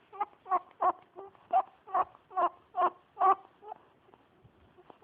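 Pet rabbit making a rapid string of short, squeaky honking noises while being stroked, about nine in a row at two to three a second, stopping a little before the end.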